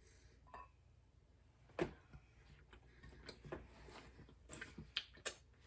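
Faint eating sounds close to the microphone: scattered small clicks and smacks of chewing, with one sharper click about two seconds in and a run of quicker clicks in the second half.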